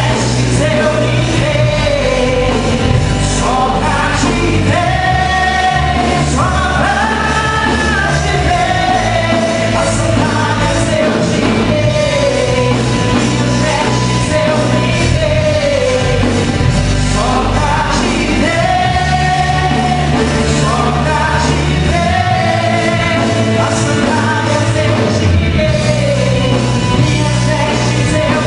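Live gospel worship band playing, with a lead voice singing melodic lines over steady bass notes and drums.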